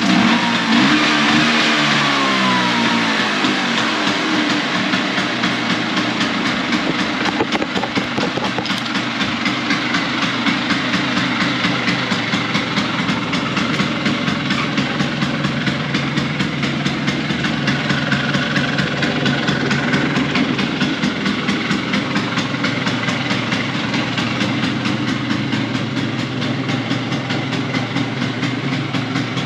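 LML Star Deluxe 150 scooter's single-cylinder engine running just after starting: the revs come down over the first few seconds, then it settles into a steady idle.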